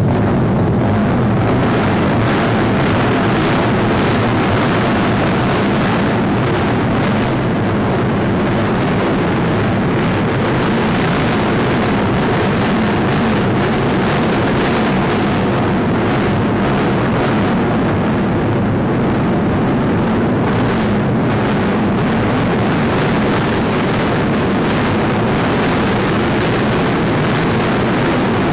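Cub Prix underbone racing motorcycles running at speed: a loud, steady, dense engine noise with no clear rises or falls in pitch.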